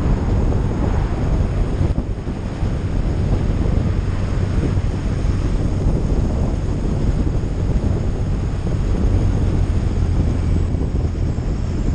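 Steady heavy wind noise on the microphone of a motorcycle riding at road speed, with the bike's engine and road noise running underneath.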